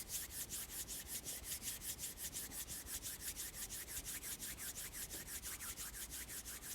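A person's palms rubbing briskly together to warm the hands: a dry swishing in quick, even strokes, about six or seven a second.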